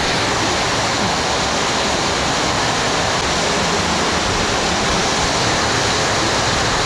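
Heavy rain pouring down, a loud, steady hiss of falling water.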